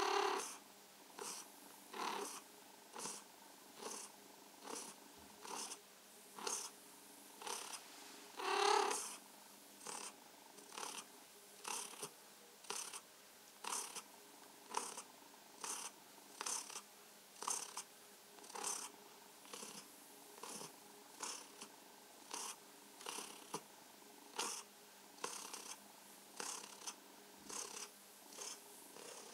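Tabby cat purring steadily while being stroked, the purr swelling in a regular pulse about once a second, with one louder, longer swell about nine seconds in.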